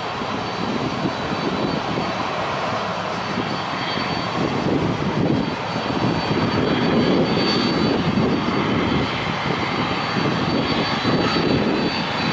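Twin-engine jet airliner taxiing past at low thrust: a steady jet engine rumble with a thin high whine, a little louder in the second half as the engines go by.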